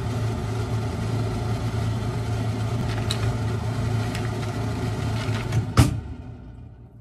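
A steady electric appliance motor hum with a hiss over it, fading out near the end. Over it come a few clinks of ice against a glass as an iced latte is stirred with a metal straw, the loudest just before the hum fades.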